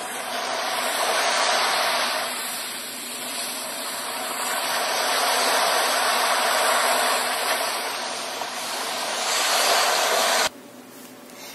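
Recorded sound of rushing water: a loud, steady hiss that swells and eases, then cuts off abruptly about ten and a half seconds in.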